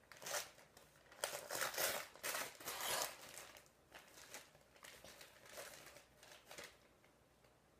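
Packaging being crinkled and torn open as a present is unwrapped: bursts of rustling over the first three seconds, then fainter, scattered crackles.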